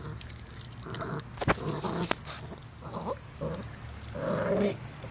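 Bulldogge puppy growling in a series of short, low grumbles over his raw chicken wing, the loudest near the end: food guarding. Two sharp clicks come about a second and a half and two seconds in.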